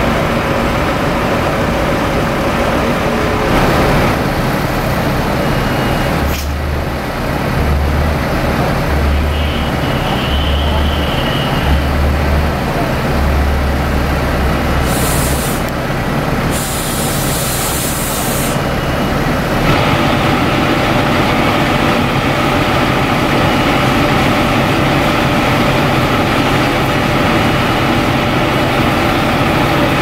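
Fire engine's diesel engine running steadily, with two short hisses of compressed air about halfway through.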